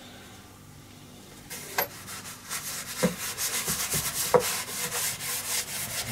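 Quick repeated rubbing strokes of an applicator over a wooden board, spreading linseed oil varnish onto the bare wood. They start about a second and a half in, with a few light knocks among them.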